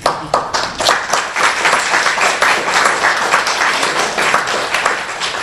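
Guests applauding, a dense crowd clapping that breaks out suddenly.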